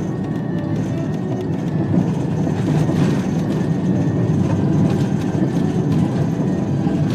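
A vehicle or heavy machine engine running steadily, with a continuous low rumble.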